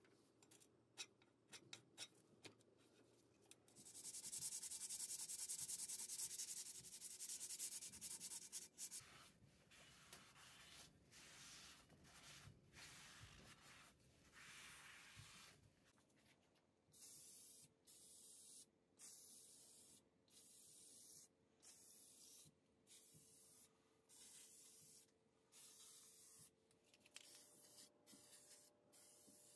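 A gloved hand scrubbing a metal part: a long spell of dense hissing rubbing, then shorter uneven strokes. From about halfway on comes a series of short, evenly spaced bursts of spray paint, roughly one every second and a half, laying primer on the metal bowl.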